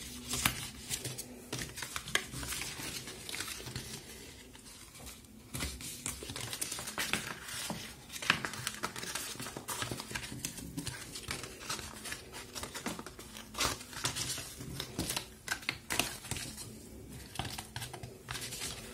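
Stiff cardstock being folded by hand along scored creases: irregular crinkling and rustling with small crisp crackles and clicks as the panels bend.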